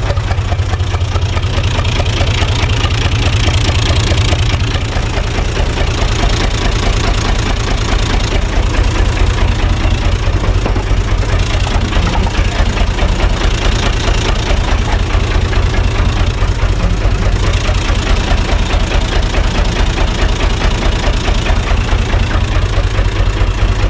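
UTB 445 tractor's diesel engine running steadily, with a fast, even beat.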